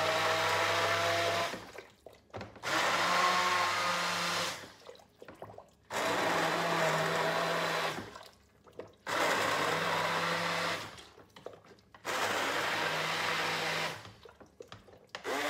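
Electric stick blender running in a pot of pumpkin soup, puréeing the cooked pumpkin in broth. It runs in five bursts of about two seconds each, with short pauses between them.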